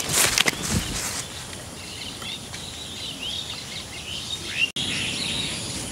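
Small birds chirping over steady outdoor background noise, with some brief rustling in the first second.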